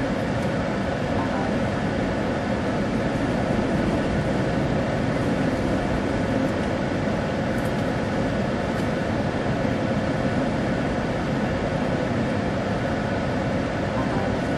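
Steady, unchanging noise of a running vehicle, with a faint even hum through it.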